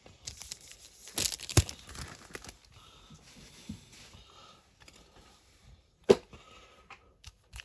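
Foil wrapper of a Pokémon card booster pack being torn open and crinkled, loudest about a second and a half in, then quieter rustling. A single sharp click comes about six seconds in.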